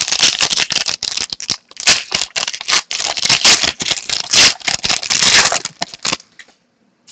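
Trading cards being flipped and shuffled by hand, a dense run of quick clicks and rustles with a short pause just under two seconds in, stopping about six seconds in.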